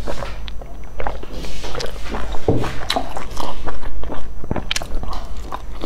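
Close-miked mouth sounds of a person eating: a sip from a mug near the start, then chewing and biting into pan-fried chive-filled pastry pockets, with many short irregular wet clicks and smacks.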